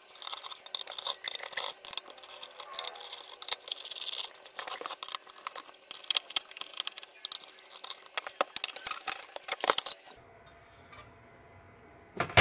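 Screwdriver working screws out of a server power supply's sheet-metal cover: a run of quick metal clicks and scrapes, with small screws clinking and the panel being handled. The clatter stops about ten seconds in.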